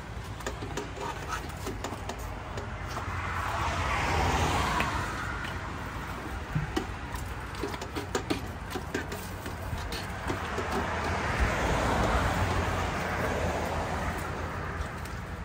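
Street traffic: two vehicles pass, one about four seconds in and another around twelve seconds, each swelling up and fading away over a steady low hum. Scattered light clicks and clinks run throughout.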